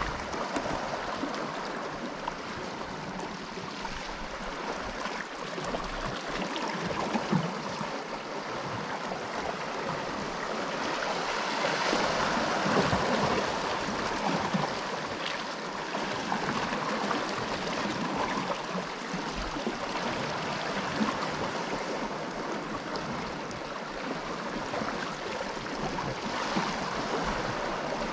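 Sea washing and swirling against the rocks below, a steady rush of water that swells a little about halfway through.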